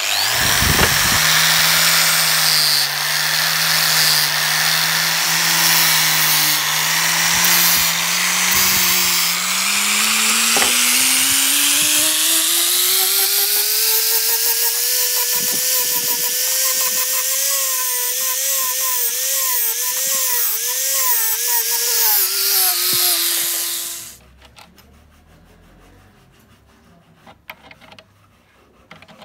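A hand-held power tool spinning a hook-and-loop sanding disc against a small hardwood knob. The motor runs at a steady pitch, then climbs in speed about a third of the way in and wavers up and down. It stops about four-fifths of the way through, leaving faint clicks.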